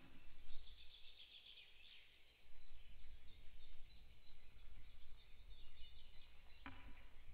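Birds chirping and twittering outdoors, over a low rumble of wind on the microphone.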